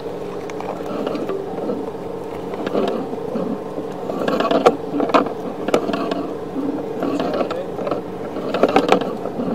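Sewer inspection camera's push-cable reel turning as the cable is pulled back, with mechanical clicking and rattling over a steady hum. The clicks grow sharper and more frequent from about halfway through.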